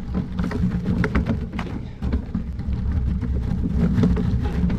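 Wind rumbling on a bike-mounted action camera's microphone while riding a road bike, with many small crackles from the tyres on a gravel path.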